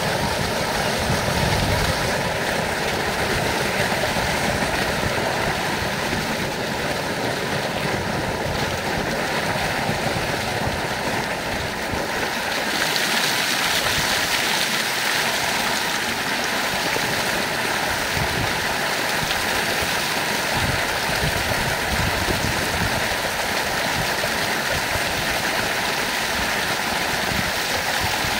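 Heavy stream of water gushing from a concrete outlet and splashing into the trough below. A little before the midpoint the splashing turns brighter and hissier as a person steps under the falling water and it breaks over his body.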